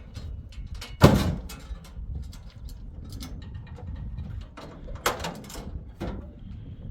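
A series of knocks and thumps: a loud one about a second in, two more near the end, with light clicks and taps between.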